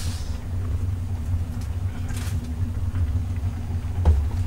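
Steady low rumble of a portable gas burner's flame under a pot of ramyeon boiling on it. A short hiss comes right at the start, a fainter one about two seconds in, and a light knock about four seconds in.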